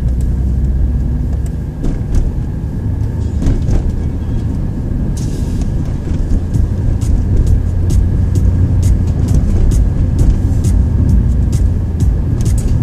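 Mitsubishi Colt driving, heard from inside the cabin: steady engine and road rumble, with frequent short clicks over it.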